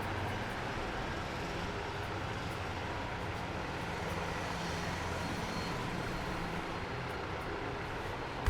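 Steady background rumble and hum, with a few faint soft ticks.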